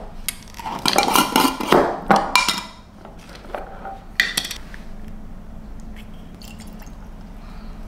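Glass mason jar and peanut butter jar being unscrewed and set down on a countertop: a quick run of clinks, knocks and lid scrapes over the first three seconds, one more sharp knock a little after four seconds, then only faint small clicks.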